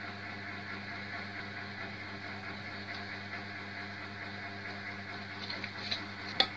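Steady low hum of a small motor or electrical appliance, even and unchanging. A few light clicks come near the end, then one sharp tap just before it ends.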